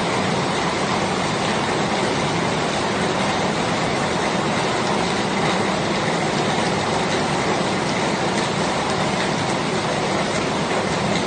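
Steady rain falling, an even hiss with faint scattered ticks of single drops.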